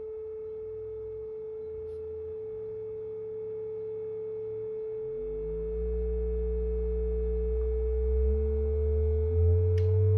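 Electronically generated sine-wave tones: one held steady at a mid pitch while a second, lower tone climbs in small steps and grows louder in the second half. Two faint clicks are heard, one early and one near the end.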